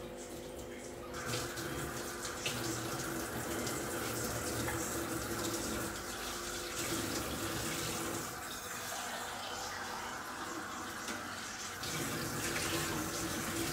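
Kitchen tap running steadily into a sink, turned on about a second in.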